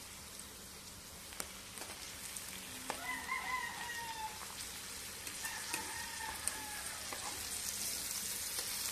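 Battered kangkong leaves deep-frying in hot oil in a wok: a steady sizzle with a few clicks of metal tongs turning them. A rooster crows about three seconds in and again around five and a half seconds.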